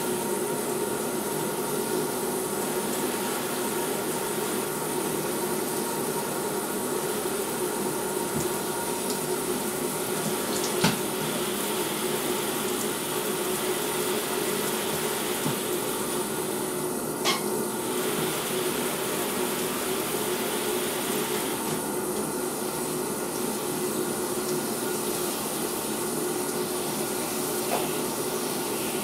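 Steady rush of water running into a bathtub, with two sharp knocks, one about eleven seconds in and one about seventeen seconds in.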